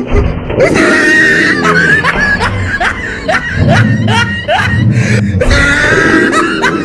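Music mixed with laughter and a run of short rising cries, several a second.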